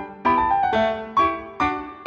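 Background piano music: single notes and chords struck about every half second, each ringing and fading.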